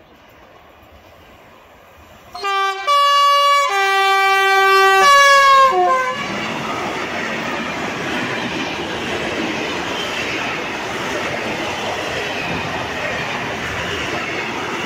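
Electric locomotive's two-tone horn sounding from about two seconds in, alternating low and high notes for about three and a half seconds. It is followed by a container freight train passing close by at speed, a steady rush and rumble of wheels and wagons.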